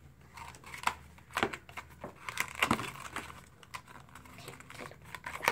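Small blind-box package of collectible pins being opened by hand: irregular crinkling and tearing of its packaging, with a few sharp snaps, the sharpest near the end.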